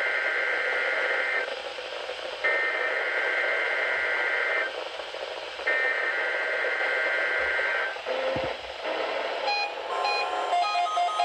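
Emergency Alert System SAME header tones on NOAA Weather Radio: three bursts of warbling digital data tones, each about two seconds long and a second apart, heard through a radio receiver with background hiss. Near the end a different electronic beeping pattern begins.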